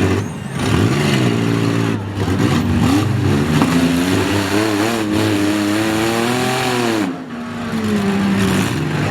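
Several demolition derby vehicles' engines revving hard, the pitch rising and falling again and again as the drivers floor it and back off.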